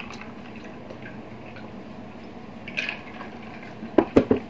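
Drinking from glass mugs of beer and water: faint sipping, swallowing and liquid sounds. Near the end come three short, loud throaty sounds in quick succession.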